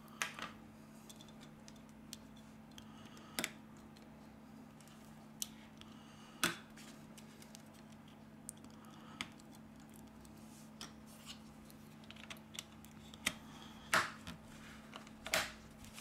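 Sharp plastic clicks and taps as fingers press connectors and the plastic board cover of a smartphone into place, more than a dozen scattered irregularly, a few much louder, the loudest near the end. A faint steady low hum runs underneath.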